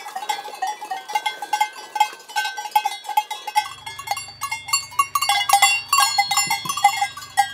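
Goat bells clanking and ringing irregularly as a crowd of goats jostles. From about halfway a low steady hum sits underneath.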